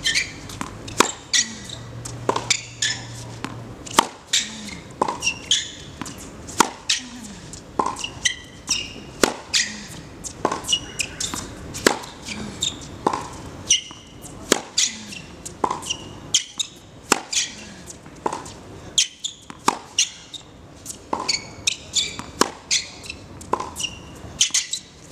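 Tennis balls being struck by a racket and bouncing on a hard court in a steady practice rally: a string of sharp hits, one or two a second, with short shoe squeaks and brief grunts between strokes.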